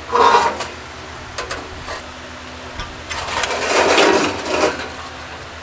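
Metal hand tools clinking and rattling as nut drivers are handled and tried on a small nut: a short clatter at the start, a few light clicks, then a longer rattling stretch about three seconds in.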